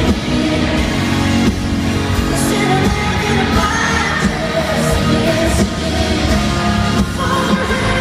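Live band playing a country song with a woman singing lead into a microphone, amplified through an arena sound system.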